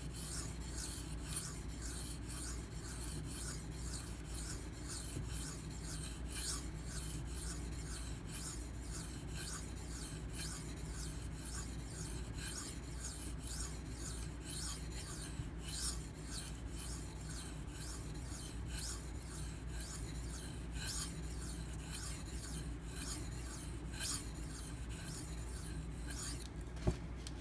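Dalton 07 Militia knife blade being stroked back and forth on a wet Venev bonded diamond stone: a steady run of rapid, even scraping strokes, steel grinding against the abrasive. A single short click comes near the end.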